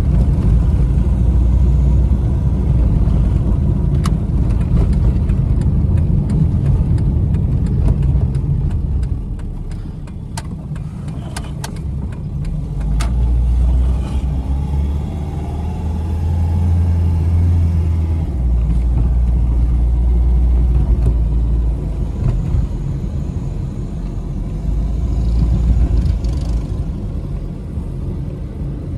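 Dodge Neon Sport Coupé's four-cylinder engine and tyre noise heard from inside the cabin while driving, the engine note rising and falling as the car accelerates and eases off several times. A few sharp clicks come in the first half.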